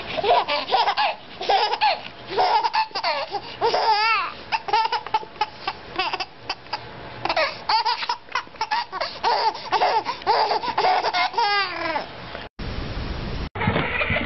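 Baby laughing hard in quick repeated bursts, with a few high squeals. The laughter breaks off about twelve seconds in and is followed by about a second of steady hiss.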